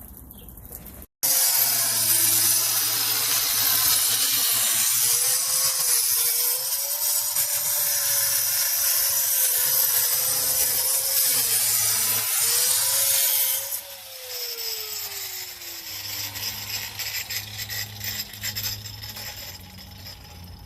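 Power saw cutting through a concrete slab: a loud, steady, high grinding hiss with the motor's whine wavering under it as the blade is worked through the cut. About fourteen seconds in the cutting stops, and the whine falls away as the blade spins down, leaving lighter scraping and knocks.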